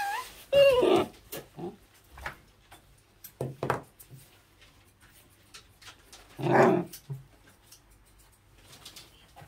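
Corgi puppy crying out while being brushed, a protest at the brushing: a loud yelp with falling pitch about half a second in, a couple of short barks around three and a half seconds, and a longer, louder bark a little after six seconds.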